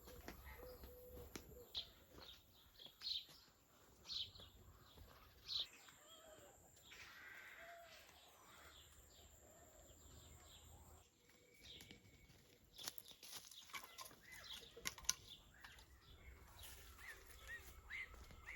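Faint rural ambience with a few short high bird chirps about a second apart in the first half, then scattered light clicks and taps.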